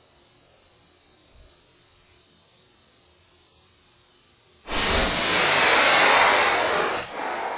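Insects, likely crickets, trilling steadily at a high pitch. About four and a half seconds in, a sudden loud rushing noise covers them for a couple of seconds, then eases and swells again near the end.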